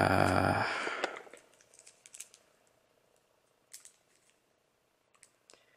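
A man's drawn-out hum for about the first half-second, then a few faint, short crinkles from the foil wrapping of a small camera battery being turned over in the hand.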